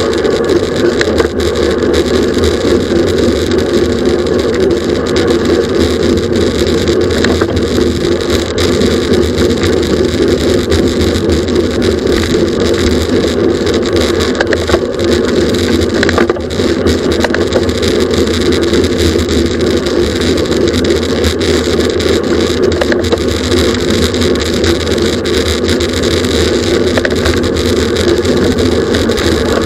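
Steady loud roar of wind and road noise on a camera travelling with a bicycle at racing speed.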